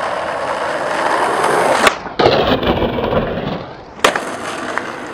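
Skateboard wheels rolling on asphalt, growing louder, then a sharp clack of the board about two seconds in and a loud rough scraping stretch as the board works the concrete ledge. A second clack comes about four seconds in as the board lands, and the wheels roll on.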